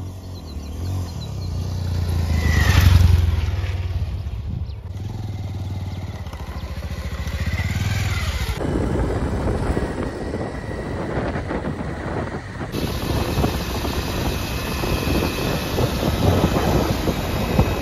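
Motorcycle engine running as the bike rides up and passes close by, loudest about three seconds in. It then keeps running as the bike is ridden, the sound changing abruptly at edits.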